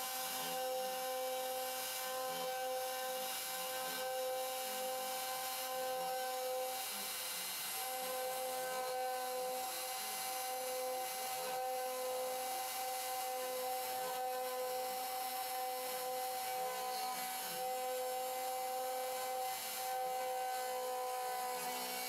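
A homemade CNC router's spindle whines steadily while a 1/4-inch ball-nose bit makes a roughing cut in wood, with a rasping cutting noise underneath. The whine dips and shifts pitch briefly a couple of times.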